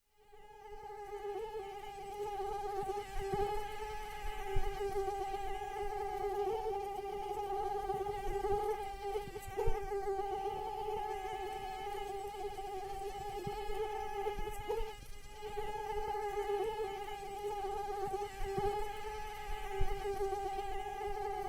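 Female mosquito in flight: a steady, high-pitched whine of its beating wings, holding one pitch with a buzzy ring of overtones. It fades in from silence at the start.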